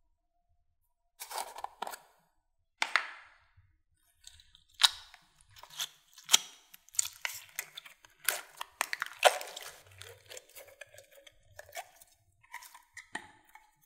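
Clear pink slime with soft cube-shaped chunks being opened, poked and pulled from its plastic jar: irregular sharp crackles and sticky pops, starting about a second in and coming thicker from about five seconds in.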